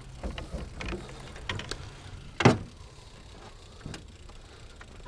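Scattered knocks and clunks of gear being handled in a jon boat, with one sharp, loud thump about two and a half seconds in.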